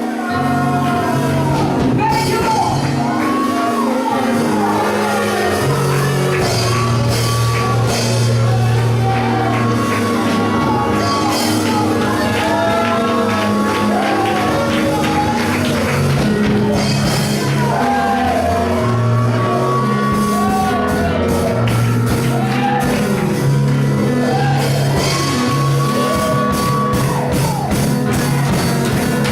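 Church praise music: bass and drums with a voice singing and shouting over it.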